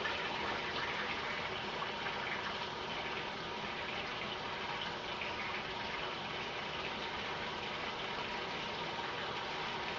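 Steady rushing of running water, like a tap left running.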